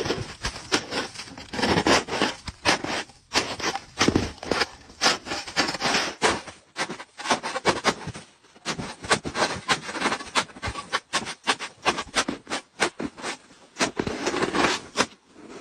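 Snow shovel blade cutting and scraping into packed snow, a rapid run of short crunching strokes with brief pauses between bouts.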